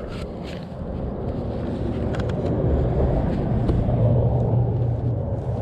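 A low engine rumble that grows louder through the middle and eases slightly near the end.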